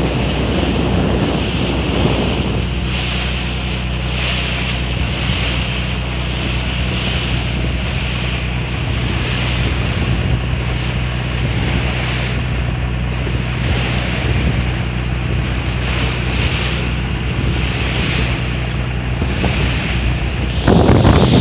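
Small fishing boat under way: the engine runs steadily as a low hum, with water rushing and splashing along the hull and wind buffeting the microphone. A louder gust of wind on the microphone comes near the end.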